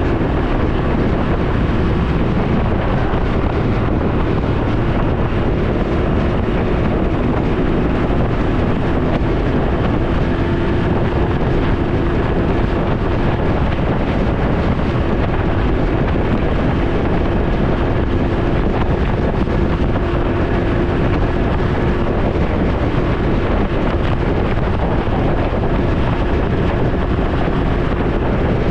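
Steady wind buffeting on the microphone over a Can-Am Ryker 900's three-cylinder engine running at an even speed while riding.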